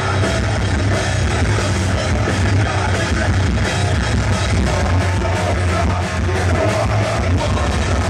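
Heavy metal band playing live: loud distorted electric guitars, bass and drums, heard from the audience.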